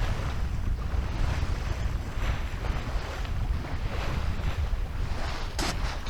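Wind buffeting the microphone with a heavy low rumble, over water washing along the hull of a sailboat under way, the wash swelling and fading every second or so. A single short sharp click near the end.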